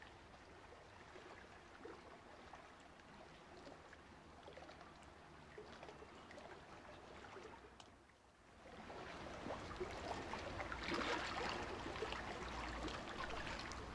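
Faint noise of moving water. It drops out for a moment about eight seconds in, then returns louder and grainier.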